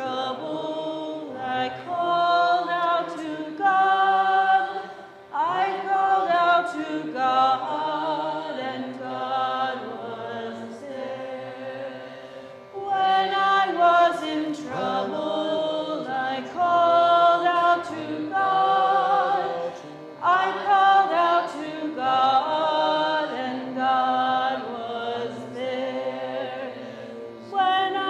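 A small congregation singing a hymn refrain together a cappella, in about four phrases with short breaks between them.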